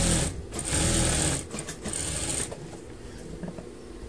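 Juki industrial sewing machine stitching fabric in quick whirring runs: a short burst, a longer run of about a second, then a softer, slower stretch. The stitching stops about two and a half seconds in.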